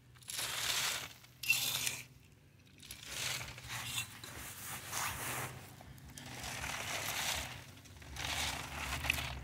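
Dry red clay and dirt clods being worked across a quarter-inch wire-mesh sifting screen, in about seven gritty scraping strokes with short pauses between them.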